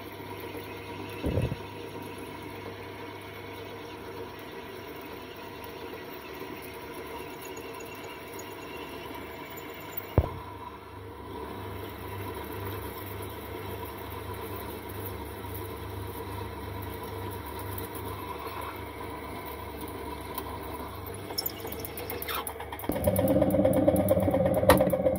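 Pillar drill motor running while its bit bores a hole in a block of aluminium, a steady hum with two sharp knocks, about a second in and about ten seconds in. Near the end the drill becomes much louder.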